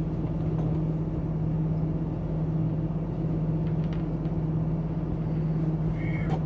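Flatbed tow truck's engine idling with a steady low hum.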